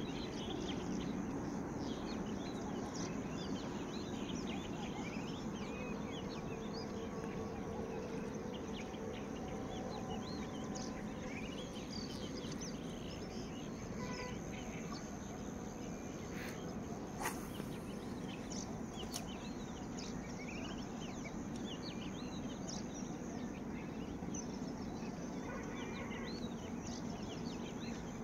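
Marshland ambience: many small birds chirping and calling over a steady background noise, with one brief sharp click about seventeen seconds in.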